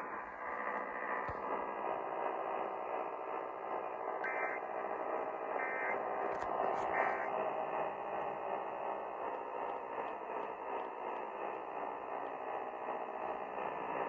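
AM broadcast heard through a Sangean HD Radio portable's speaker: steady static hiss, with three short warbling data-tone bursts about 1.4 seconds apart starting some four seconds in. These are the Emergency Alert System end-of-message code that closes the Required Monthly Test.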